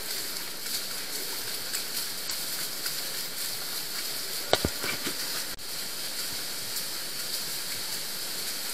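Steady rushing of the underground Neglinka river's water through its collector tunnel, with one sharp knock about four and a half seconds in.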